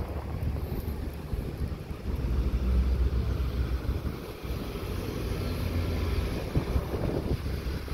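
Fire-department ambulance and pickup truck driving slowly past, engines and tyres rumbling, with wind buffeting the microphone.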